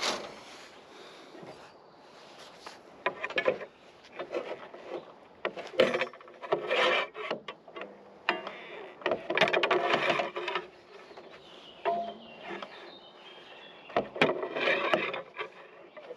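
Steel reinforcing bar scraping and knocking as rebar is handled and bent on a manual stirrup bender, in irregular bursts of a second or two with quieter gaps between.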